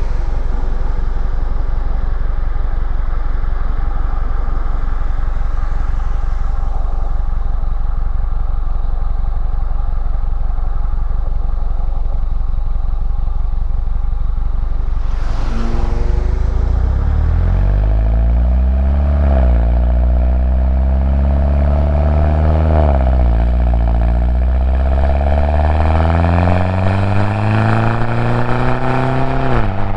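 2011 Mini Cooper S (R56) on its stock exhaust, its 1.6-litre turbocharged four-cylinder droning steadily at a cruise, then about halfway through accelerating hard: the engine note climbs through the gears, dropping in pitch at each of two upshifts.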